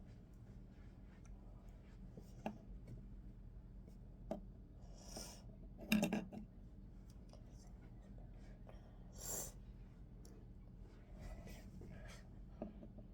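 Plastic Lego pieces being handled and set in place: scattered light clicks and brief rubbing rustles, the loudest click about six seconds in.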